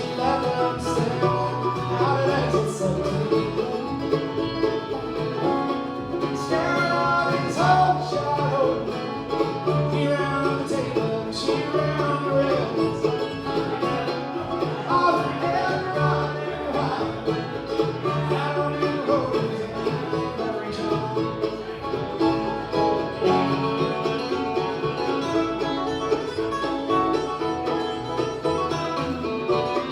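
Bluegrass band playing live, with banjo and guitar picking at a quick, steady pace.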